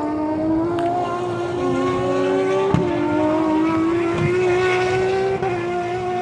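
Several Turismo Carretera race cars running at high revs together, their straight-six engines giving a slowly climbing pitch. The pitch dips briefly twice, about midway and a little after.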